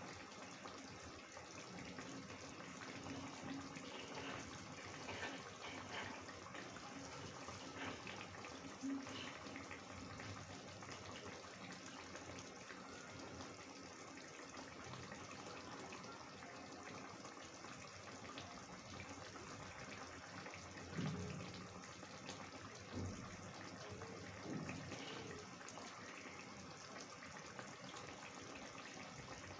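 Chicken curry gravy simmering in a kadhai: a faint, steady bubbling hiss with a few soft pops.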